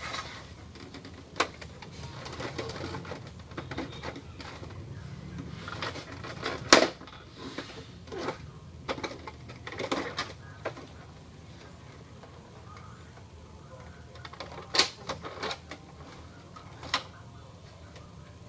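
Irregular plastic clicks and knocks from an Epson L210 printer's scanner unit and casing as they are handled and lifted open by hand. The sharpest knock comes about seven seconds in.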